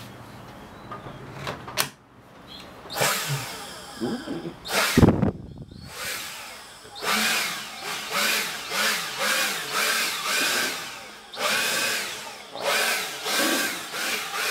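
Cordless battery-powered leaf blower run in repeated short blasts, its motor whirring up and down in pitch about once a second as the trigger is squeezed and eased. There is one loud thump about five seconds in.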